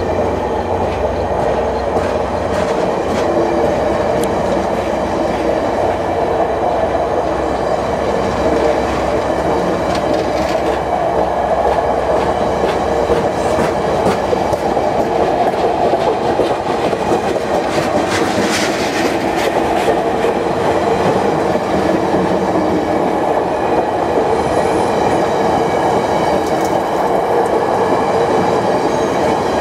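VIA Rail's The Canadian, a train of stainless steel Budd passenger cars, rolling past close by: a steady rumble of wheels on rail with a ringing tone and scattered clicks as the wheels cross rail joints. A low drone under the rumble drops away about two to three seconds in.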